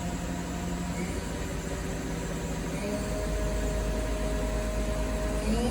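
Milltronics ML22 CNC flat bed lathe running, a steady machine hum with several held tones that shift pitch about a second in and again about three seconds in, then glide upward near the end as the speed changes.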